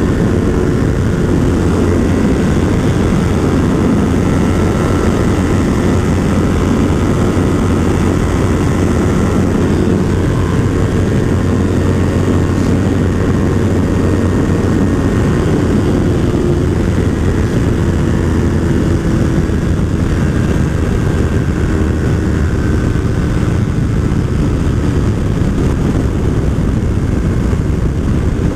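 Yamaha R3's parallel-twin engine running hard at high highway speed, around 175–180 km/h, heard from the rider's seat with heavy wind rush, steady throughout.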